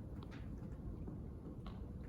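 Library room tone: a steady low hum with a few faint, short ticks and clicks, two close together just after the start and one near the end.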